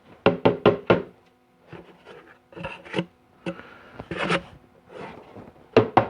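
Hard objects being handled and set down. A quick run of about four knocks starts it, scattered rubbing and scraping follows, and two sharper knocks come near the end.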